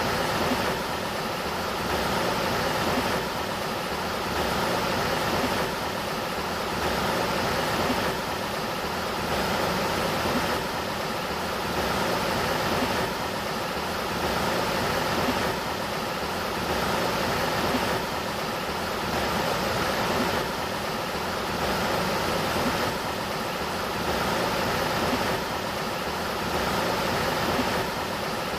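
The Sacramento River's flowing water: a steady rushing hiss that swells gently and regularly about every two and a half seconds, with a faint steady hum underneath.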